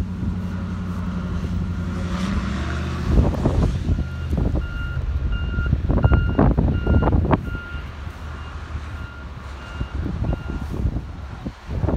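A truck's reversing alarm beeping repeatedly, starting about four seconds in, over the low rumble of a truck engine whose steady hum drops away a couple of seconds in.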